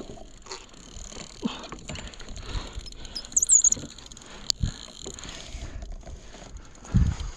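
Small splashes and knocks of water against a plastic kayak hull, irregular, with a brief high chirp about three and a half seconds in and a sharp click a second later.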